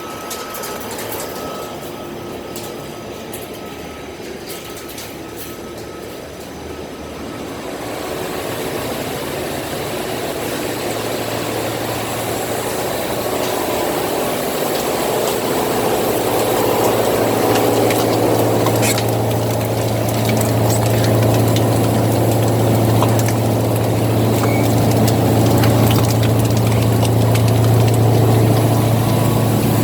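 Foam-scrap recycling machinery running, a steady low hum with mechanical noise over it. The hum comes in about a third of the way through and grows louder toward the end.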